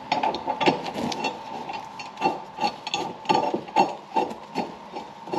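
Uneven metal clinks and knocks as a Country Clipper mower blade, its bolt, washer and spacer are fitted by hand to the underside of the cutting deck.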